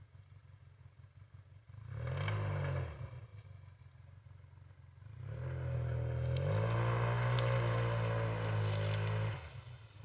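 Off-road vehicle engine briefly revving up and back down about two seconds in, then revving up again and holding a steady pull for about four seconds before easing off near the end.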